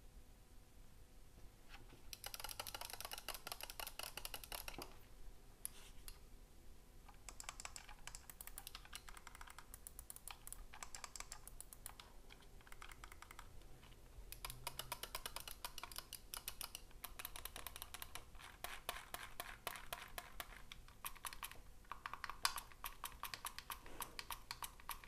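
Razer Basilisk V3 gaming mouse buttons being clicked rapidly, in several runs of quick clicks with short pauses between them.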